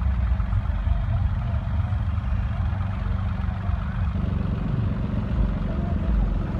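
John Deere 5060 E tractor's diesel engine running steadily.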